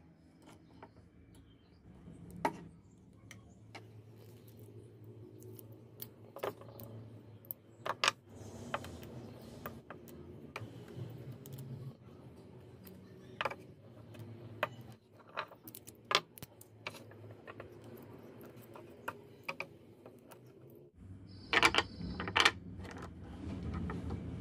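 Scattered small metallic clicks, clinks and taps as 18650 lithium-ion cells are handled and worked with pliers, with a cluster of louder clicks near the end.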